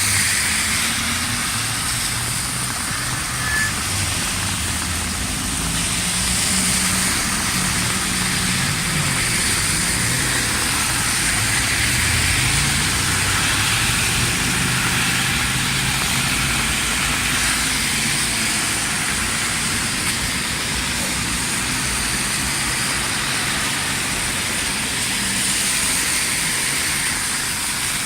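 Heavy rain downpour with motor vehicle engines running and shifting in pitch as traffic moves. A faint siren wails, rising and falling, behind it.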